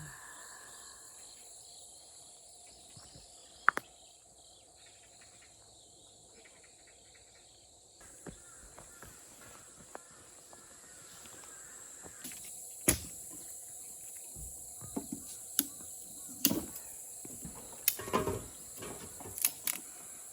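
Steady high-pitched chirring of crickets, with several sharp clicks and knocks scattered through the second half.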